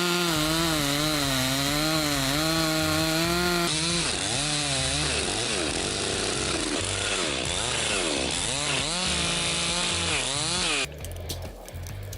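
Chainsaw engine running and revving, its pitch wavering and then repeatedly rising and falling, in several cut-together clips. Near the end it cuts abruptly to a quieter passage with scattered clicks.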